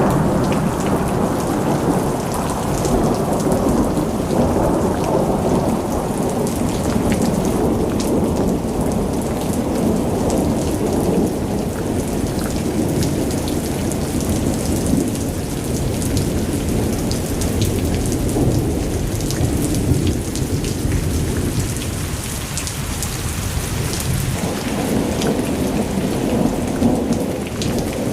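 Heavy rain in a thunderstorm: a steady downpour with thunder rumbling low underneath, and individual drops ticking sharply on a nearby surface.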